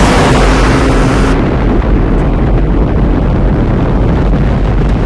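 Loud continuous rumble of a film sound effect for a meteor streaking overhead, with a hissing top that drops away suddenly about a second in.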